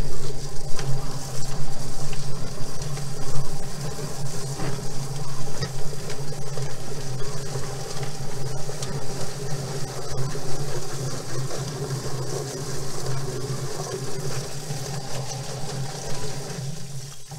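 Yardbird drum chicken plucker running, its electric motor giving a steady low hum while a scalded Cornish Cross chicken tumbles against the rubber plucking fingers and a garden hose sprays water into the drum, making a constant splashing hiss. The churning is busiest in the first few seconds and eases somewhat toward the end.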